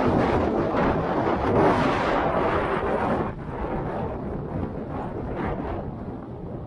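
Strong wind gusting and buffeting the microphone with a rumbling roar, loudest for the first three seconds and then easing off.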